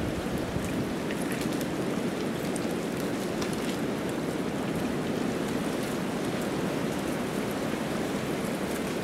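A small brook running steadily, with fine trickling and splashing over the flow.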